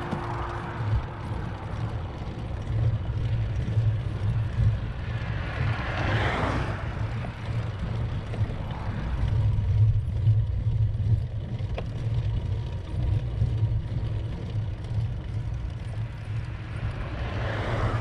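Road noise from a bicycle-mounted camera: a steady, gusting low rumble of wind on the microphone, with a car swishing past about six seconds in and another near the end.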